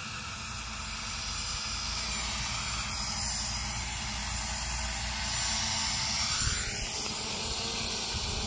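A small toy quadcopter drone's propellers whirring steadily in flight, swelling a little past the middle with a short rise in pitch.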